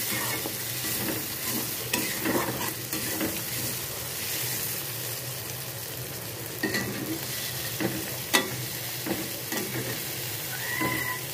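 Spicy masala gravy sizzling and frying in a metal kadai while being stirred with a flat metal spatula, with scattered sharp clinks of the spatula against the pan, the loudest about eight seconds in.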